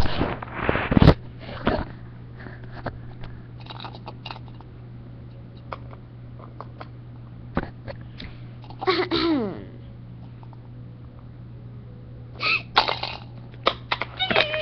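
Knocks and clicks from toys being handled close to a webcam microphone, with short vocal sounds: a loud burst at the start and a brief sound falling in pitch about nine seconds in. A steady low electrical hum runs underneath.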